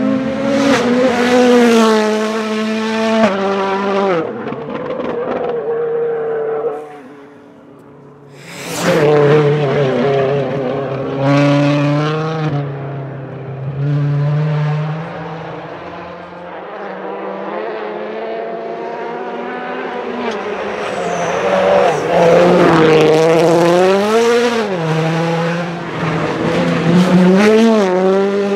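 2017 Ford Fiesta WRC rally cars' 1.6-litre turbocharged four-cylinder engines driven hard past the microphone over several passes, the engine note rising and falling again and again. A brief quieter dip comes about seven seconds in.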